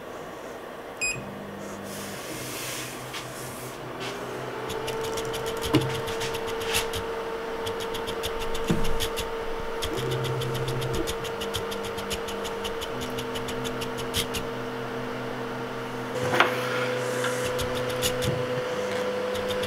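Anycubic Kobra 3D printer's stepper motors humming in stretches as the axes home at the start of auto-leveling, with a steady whine that rises into pitch about four seconds in and scattered light clicks.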